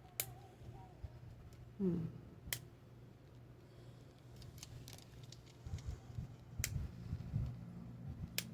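Small sharp clicks of tweezers and plastic parts in a PS5 DualSense controller's trigger assembly being pried at, four scattered clicks with soft handling bumps between them.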